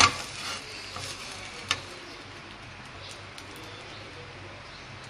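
A sharp knock right at the start and a smaller one about 1.7 s in, then a faint hiss and light crackle of thin spring roll batter cooking on an oiled tawa.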